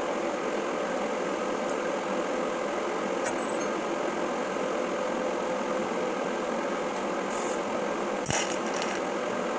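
Steady machine hum like a running fan, with a faint held tone and a few light clicks and knocks.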